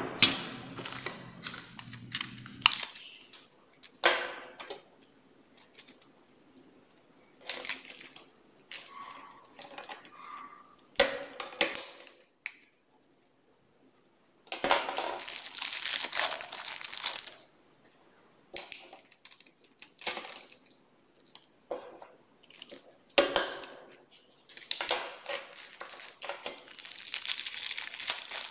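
Hands handling a plastic modular switch plate and switch modules in clear plastic packets: crinkling of the packets, with sharp clicks and knocks of plastic against a hard floor. There are longer stretches of crinkling midway and again near the end.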